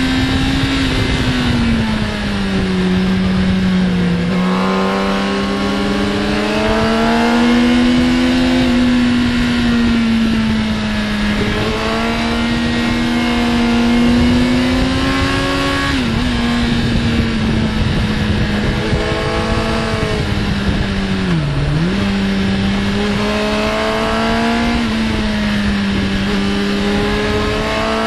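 Onboard sound of a sport motorcycle's inline-four engine under way. Its pitch climbs as it accelerates and drops at each gear change or roll-off, several times over, beneath a steady rush of wind.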